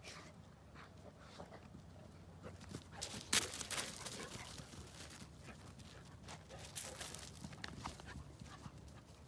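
Two Boerboel dogs play-fighting and chasing on grass: irregular scuffling and paw thuds, loudest a little over three seconds in.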